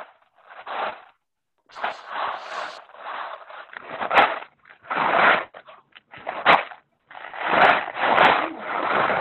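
Homemade paper plate ocean drums being tilted back and forth, the filling rolling and rattling inside with a rushing noise. It is heard over a video call in uneven bursts that cut in and out, with a few sharp clicks.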